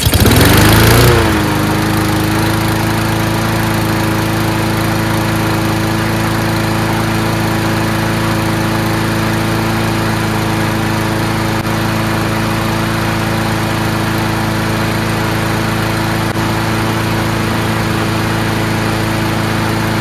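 Troy-Bilt TB240 mower's Honda single-cylinder four-stroke engine catching at the start, revving up for about a second, then settling to a steady, even run at constant speed. It runs really well now that its carburetor has been cleaned.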